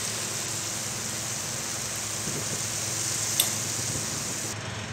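Yogurt-marinated chicken sizzling in a steel pot on residual heat after the flame is turned off, its marinade liquid cooked dry. There is one short tap about three and a half seconds in, and the hiss cuts off suddenly near the end.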